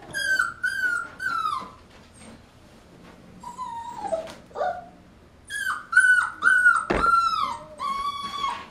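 Goldendoodle puppy whining in high cries that slide down in pitch at the end: three in quick succession, a few fainter ones, then a run of about six. There is a sharp knock about seven seconds in. The whines are a puppy's stress and frustration at being shut in a box.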